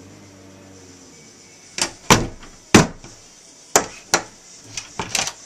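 A child banging hard on a closed wooden door: five loud bangs starting about two seconds in, then a quicker run of lighter knocks near the end.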